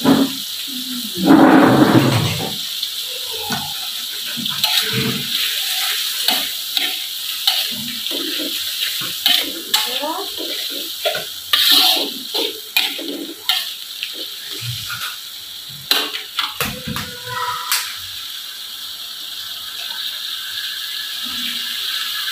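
A metal spatula scrapes and knocks against a metal wok as tomato, onion and chili sauce are stirred, in many short clicks and scrapes over a steady sizzle. There is a brief loud burst of noise near the start.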